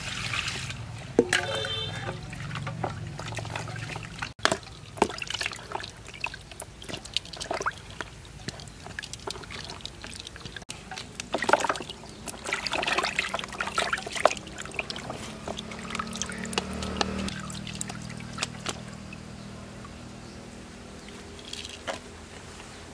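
Water poured from a plastic dipper into a plastic basin, then sloshing, splashing and dripping as raw pork ribs are rinsed by hand, with irregular small splashes and knocks.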